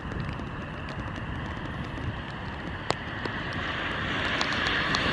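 Wind buffeting the microphone as an unsteady low rumble, with a hiss that swells steadily over the last two seconds and a single sharp click about three seconds in.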